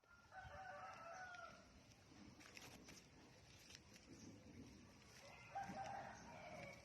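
Faint chicken calls: two drawn-out calls, one at the start and one about five and a half seconds in, with a few faint short high chirps between them.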